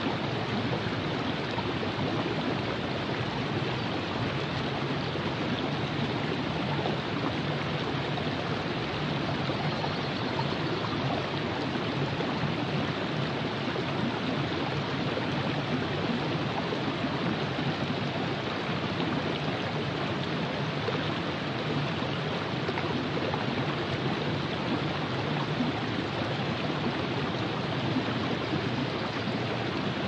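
The Virgin River flowing: a steady, even rush of moving water.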